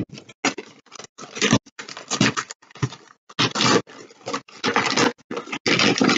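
Brown wrapping paper on a parcel rustling and crinkling by hand in irregular bursts as it is unwrapped.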